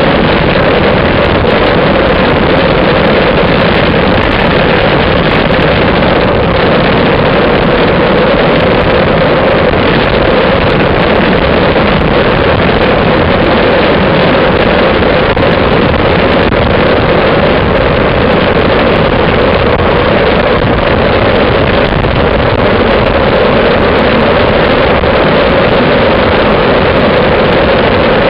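Steady, loud wind rush on the microphone of a camera mounted on a moving road bike, with no let-up.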